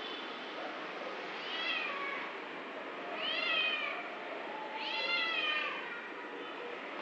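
A cat meowing three times, about a second and a half apart, each call rising then falling in pitch, the later two longer.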